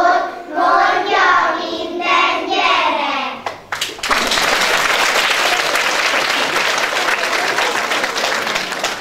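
A group of young children reciting a German rhyme in unison in a sing-song voice, stopping about three and a half seconds in; then an audience applauds steadily.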